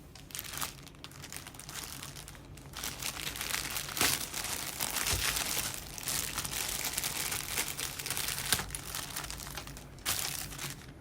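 Crinkling and crumpling of packaging as it is handled: an irregular rustle with sharper crackles about four seconds in and again near the end.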